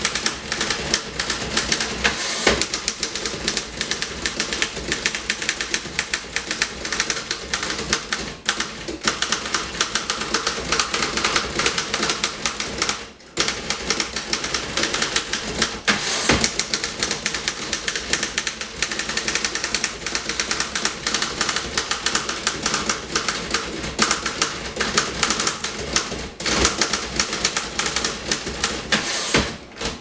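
1937 Royal KHM manual desktop typewriter being typed on at speed: a fast, continuous clatter of keystrokes, the typebars striking the platen, with a brief pause about halfway through.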